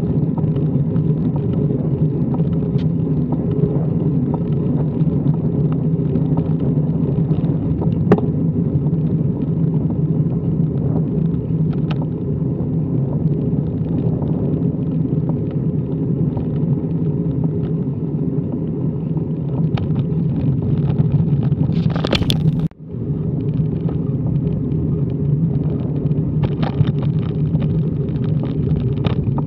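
Wind rushing over the microphone of a handlebar-mounted camera on a road bike at speed, with a steady low rumble from the tyres on tarmac. It breaks off briefly about three quarters of the way through.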